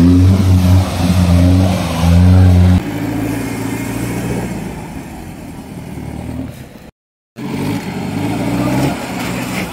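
Modified off-road jeep engines running and revving under load, loud and low-pitched, with the pitch rising and falling. The sound changes abruptly about three seconds in and drops out completely for a moment about seven seconds in, as separate clips are cut together.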